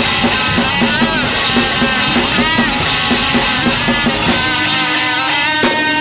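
Live rock band playing an instrumental passage: distorted electric guitars and bass over a drum kit keeping a steady beat, with a few bent guitar notes. About five seconds in the low end thins out and sharp drum hits come in.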